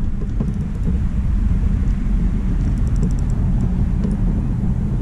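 Steady low rumble of wind and water on an action camera's microphone while a fish is played on a spinning rod from a kayak, with a short run of rapid reel clicks about three seconds in.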